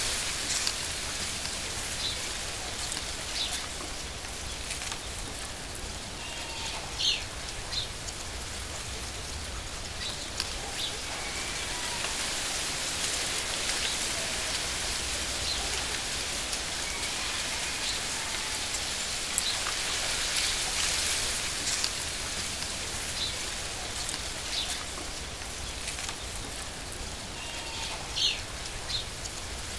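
Steady hiss of water, falling rain or running water, laid as a nature-ambience soundtrack, with occasional short chirps over it.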